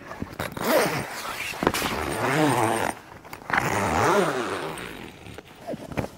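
Heavy zip in a canvas awning wall being run along its length, three pulls of about a second each, each rising and then falling in pitch as the slider speeds up and slows.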